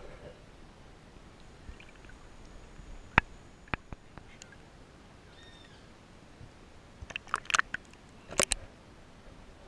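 Muffled sound from a waterproof-housed action camera moving underwater and up to the water's surface: a low steady hiss with a few sharp clicks and knocks, then a quick cluster of clicks and crackles near the end.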